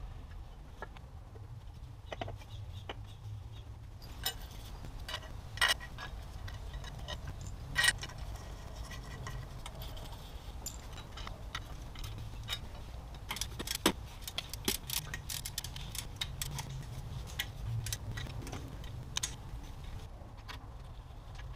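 Gloved hands handling engine parts in a BMW M54 engine bay: a run of irregular clicks and clinks, with a few sharper knocks about six, eight and fourteen seconds in, over a steady low hum.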